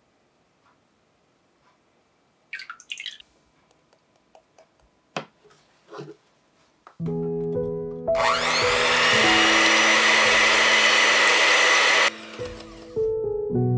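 Electric hand mixer starting with a rising whine about eight seconds in, then whipping heavy cream in a glass bowl for about four seconds before cutting off suddenly. Before that there are only a few soft handling sounds, and background music plays from about seven seconds in.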